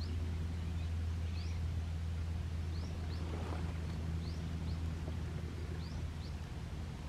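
A steady low drone, fading out near the end, with short high bird chirps repeating every second or so over it.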